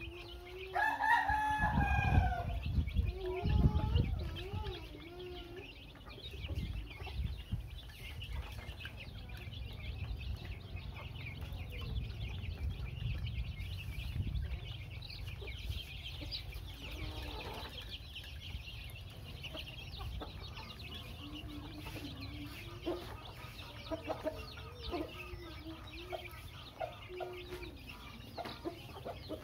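Young chicks peeping continually as they feed, with a rooster crowing once about a second in and low clucking calls in the later part.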